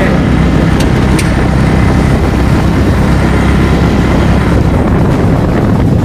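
Loud, steady rumble of a moving vehicle, with wind buffeting the microphone.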